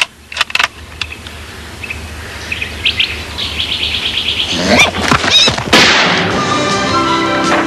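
Birds chirping in short repeated trills, with a few sharp clicks just after the start. About five seconds in comes a loud sound that sweeps up and down in pitch, and orchestral film score music comes in at about six seconds.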